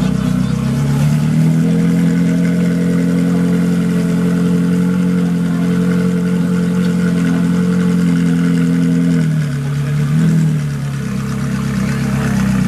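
Ferrari 458 Challenge race car's 4.5-litre V8, stationary: it steps up from idle to a steady higher rev about a second in, holds there, drops back about nine seconds in, then gives one short blip of the throttle before settling to idle.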